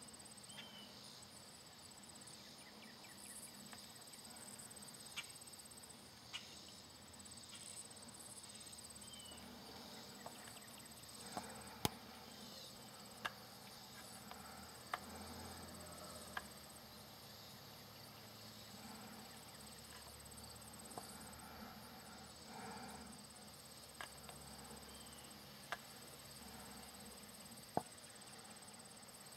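Faint chorus of calling insects: a steady, finely pulsing high trill. A few faint clicks and ticks are scattered through it.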